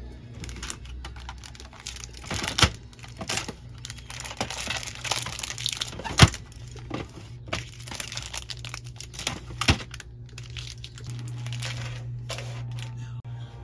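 Clear plastic bags holding acrylic keychains crinkling as they are handled, with three sharp clicks, about two and a half, six and nine and a half seconds in, from a clear plastic organizer drawer being pulled open and pushed shut.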